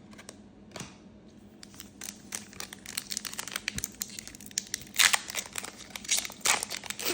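Trading-card pack wrapper crinkling and tearing as a pack is opened, with light clicks of cards being handled. The crinkling starts quiet and grows louder from about two seconds in, with its loudest bursts around five seconds in.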